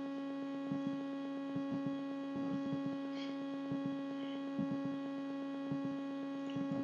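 Steady electrical hum in the recording, one low tone with several higher tones stacked above it, with faint short irregular noises now and then.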